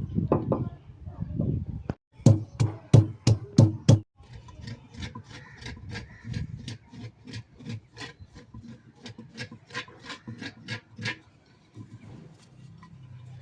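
A kitchen knife chopping on a wooden cutting board: about six hard strokes, then a steady run of lighter chops at about three a second.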